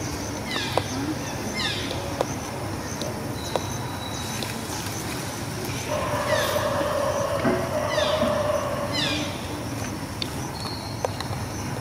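Birds calling over and over in runs of quick falling chirps. Near the middle, a steady drawn-out whine lasts about three seconds, and there are a few sharp clicks.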